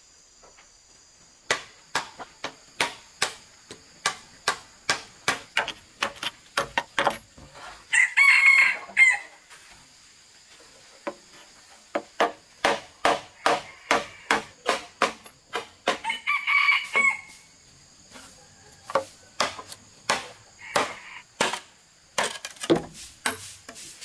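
Machete blade chopping into the ground in a quick, regular run of sharp strokes, about two to three a second. A rooster crows twice, about a third and two thirds of the way through, each crow about a second long, over a steady high-pitched drone.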